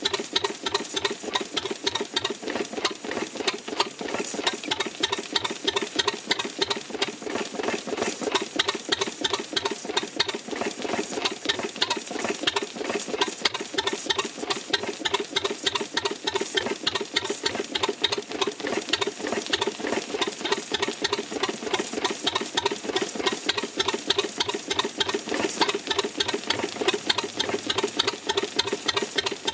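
Standard Gas Engine Co. two-cylinder 6 hp stationary gas engine of about 1905 running steadily, with a quick, even clatter of beats, fed by petrol trickled down its priming cup.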